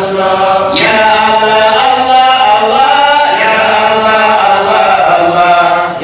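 A man's voice chanting an Islamic devotional song through a microphone and loudspeakers, in long held notes that bend and glide in pitch.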